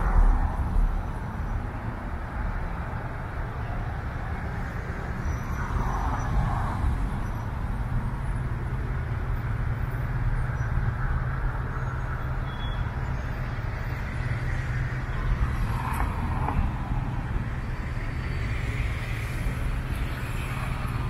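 Steady low engine and road hum of a car driving slowly along a city street, with other traffic swelling past a few times.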